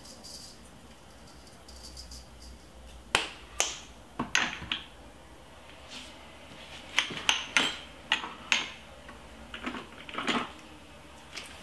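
Plastic spice shaker jars being handled: a faint shaking hiss of spice at first, then irregular clusters of sharp clicks and taps as the jars and their flip-top caps are worked.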